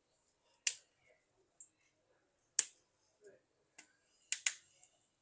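Sharp plastic clicks, about half a dozen spaced irregularly and loudest near the middle, as the clips of a smartphone's inner plastic cover are pried loose around its edge.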